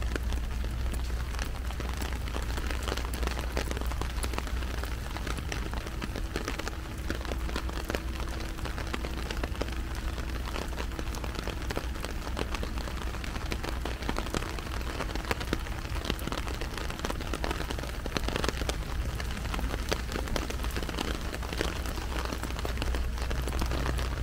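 Heavy rain falling on an umbrella overhead: a dense, unbroken crackle of drops, with a steady low rumble underneath.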